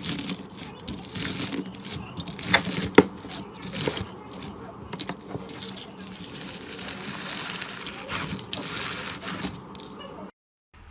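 Slime being squished and stretched, making irregular wet clicks and crackling pops. It cuts out suddenly near the end.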